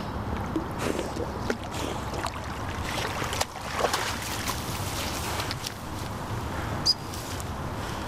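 Water splashing and reeds and lily pads rustling as a spaniel wades out of a pond, with wind noise on the microphone. A short high chirp comes about seven seconds in.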